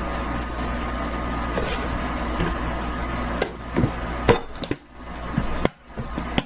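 A few knocks and clinks of a mixing bowl and kitchen utensils being handled, over a steady low background hum.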